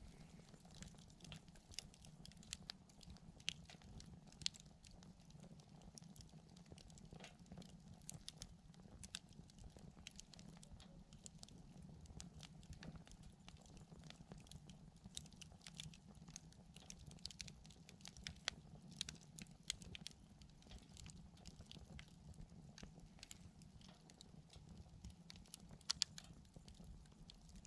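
Wood campfire crackling: faint, irregular small pops and snaps over a low steady hum, with a couple of sharper snaps about four seconds in and near the end.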